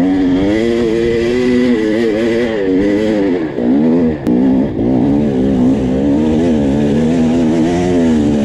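Two-stroke enduro dirt bike engine revving, its pitch rising and falling continuously as the throttle is worked, with a brief drop-off about four seconds in.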